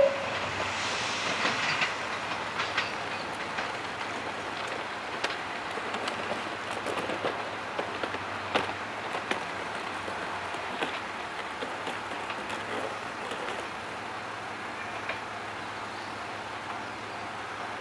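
Diesel railcar train running away over station pointwork. Its wheels click irregularly over the rail joints and switches as the running noise slowly fades.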